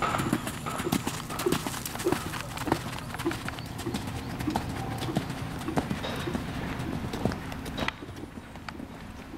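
Hoofbeats of a horse cantering on a sand arena: a steady run of dull thuds, which grow quieter about eight seconds in.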